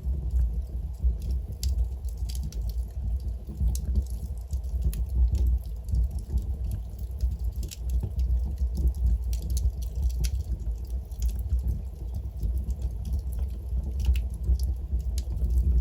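Wood logs burning in a fireplace: many small irregular crackles and pops over a steady low rumble of the flames.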